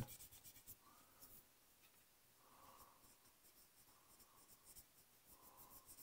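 Faint scratchy rubbing of a cotton swab burnishing bare-metal foil down onto a model part, in a few short strokes.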